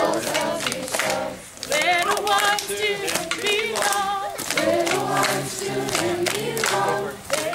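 A group of voices singing a song together, with hands clapping along in rhythm.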